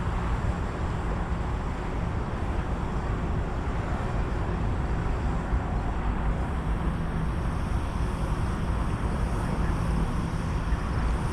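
Steady hissing with a low rumble underneath, at an even level throughout. The source is unidentified; the listener, who also smells gas, wonders whether it comes from a railroad switch.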